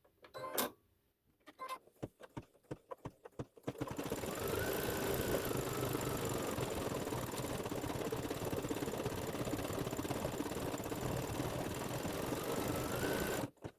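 Embroidery machine stitching out a design: scattered clicks for the first few seconds, then steady rapid stitching from about four seconds in that stops shortly before the end.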